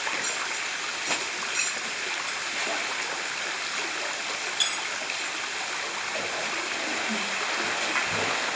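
Steady rushing of a canyon stream's flowing water, with a few light knocks about one, one and a half, and four and a half seconds in.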